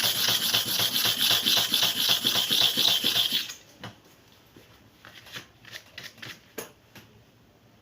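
Hair clipper blade being rubbed rapidly to and fro across a sharpening surface by hand, a fast run of gritty rasping strokes, about six a second, that stops about three and a half seconds in. A few light clicks and taps follow as the blade is handled.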